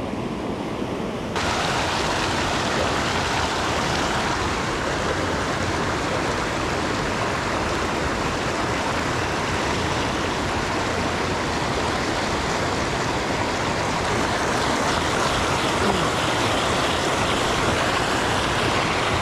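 Mountain creek water rushing steadily over rocks in white-water riffles, getting louder and brighter about a second in and then holding steady.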